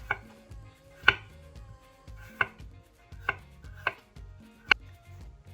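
Kitchen knife cutting through fresh ginger and knocking on a chopping board, six separate strokes at an uneven pace of about one a second.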